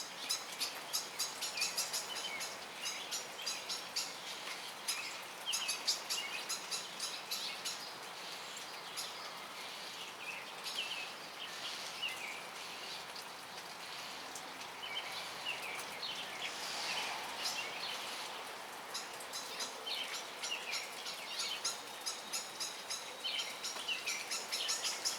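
Small birds chirping in quick runs of short, high calls, busiest near the start and the end, over a steady background hiss.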